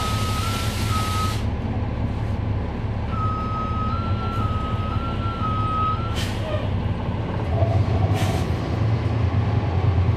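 A 2011 NABI 416.15 transit bus with a Cummins ISL9 diesel, running with a steady low drone. A warbling tone steps back and forth between two close pitches for a few seconds, twice. A broad hiss cuts off about a second in, and there are two short air hisses around six and eight seconds in. The engine grows louder near the end.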